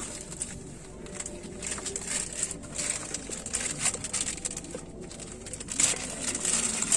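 Rustling and crinkling of packaging as a shisha kit is unboxed by hand: irregular bursts of handling noise, with the busiest stretches about two seconds in and near the end.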